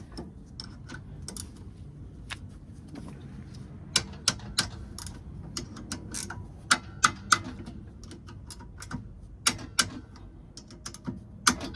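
Metal tools and brake parts being handled during a rear brake pad job: scattered sharp clicks and clinks, several coming in quick groups of two or three.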